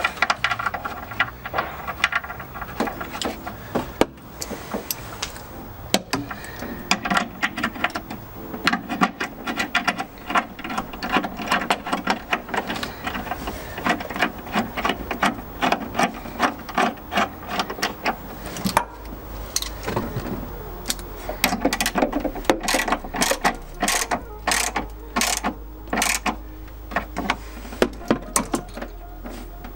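Hand socket ratchet clicking in rapid runs with short pauses as nuts on the battery braces are wound down.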